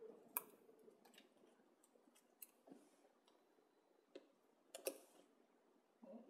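Faint clicks and rustles of chipboard pieces and adhesive tape being handled and pressed together on a tabletop, with a sharp tick about half a second in and another near five seconds.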